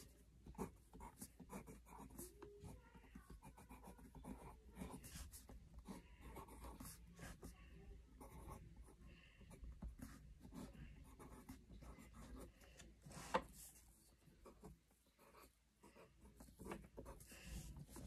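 Faint handwriting on paper: short scratchy strokes in quick succession, with one sharper click about 13 seconds in.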